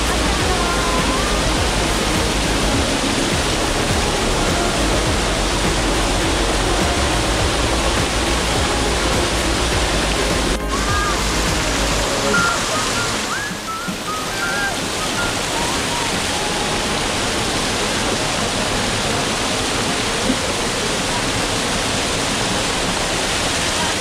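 Small mountain-stream waterfall spilling over boulders, a steady rushing of water close by. The sound shifts and dips slightly about halfway through as it changes to another cascade.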